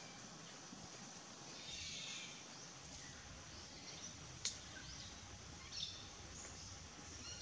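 Quiet outdoor ambience with faint high bird chirps now and then, and one sharp click about four and a half seconds in.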